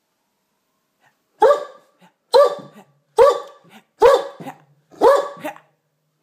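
Great Dane barking: five single barks about a second apart, beginning about a second and a half in.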